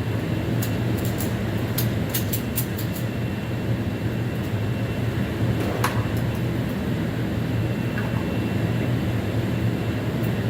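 Steady low hum and rumble of background machinery, such as range ventilation, with a few faint clicks in the first few seconds and one more about six seconds in.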